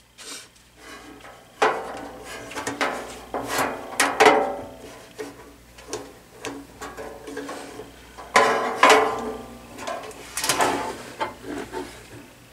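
A small electric heater fan motor on its metal bracket, with a plastic fan blade, being handled and positioned against the heater's metal housing: irregular clicks, scrapes and knocks, with a few louder clanks that ring briefly. The loudest come about two, four, nine and eleven seconds in.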